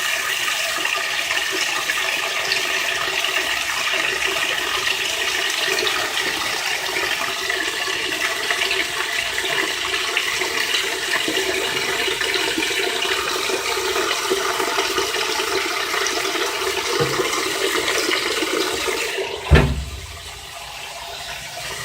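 Water rushing into the tub of a Whirlpool Direct Drive top-loading washing machine as it fills, a steady splashing. Near the end there is a single thump, after which the filling sound is quieter.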